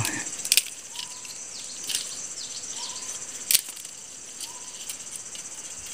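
Steady high-pitched insect chorus of crickets or cicadas. Three sharp clicks fall about a second and a half apart, and a few faint short whistled notes come and go.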